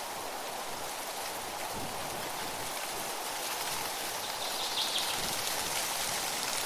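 Wind blowing through tree leaves: a steady rustling hiss that swells slightly past the middle.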